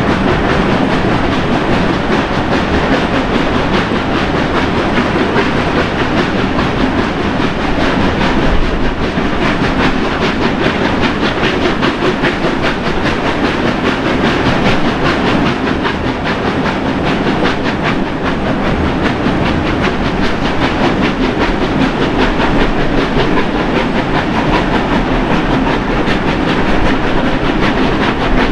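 Steam-hauled passenger train running, heard from an open carriage window: a steady loud rumble and clatter of wheels on the rails.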